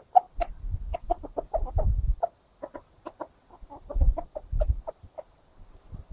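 Rooster's food call: a run of short, repeated clucks, two or three a second, summoning the hens to food he has found. Low rumbling comes and goes beneath the calls.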